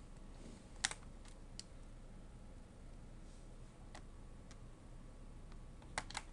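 Scattered light clicks from a laptop being handled, about seven in all: the loudest about a second in and a quick pair near the end, with quiet between them.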